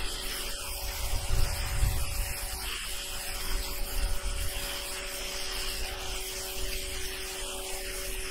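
Water jet from a Ryobi RY141612 1600 psi electric pressure washer's turbo nozzle hitting asphalt roof shingles to strip moss: a steady spray hiss with a steady hum beneath.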